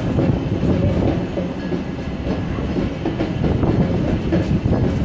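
Busy outdoor square: the mixed chatter and footsteps of a large crowd over a steady low rumble.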